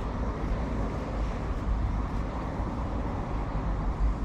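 Steady rushing noise with a heavy low rumble as a motorised kayak travels along the river: wind buffeting the microphone and water running past the hull.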